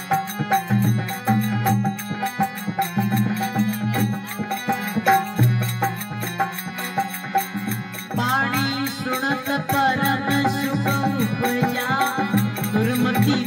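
Harmonium playing a folk devotional bhajan over steady rhythmic percussion. A man's voice comes in singing with wavering held notes about eight seconds in.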